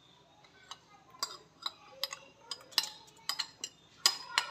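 A spoon tapping and scraping against a plastic bowl while ground rice paste is emptied into a pan of milk: a run of light taps and clinks, about two a second, louder toward the end.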